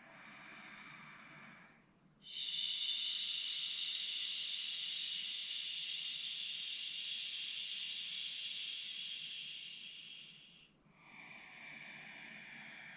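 A woman's paced yogic breathing: a soft inhale through the nose for about two seconds, then a long, steady 'shh' exhale through the mouth lasting about eight seconds and fading out, then another soft inhale. The exhale is held two to three times as long as the inhale.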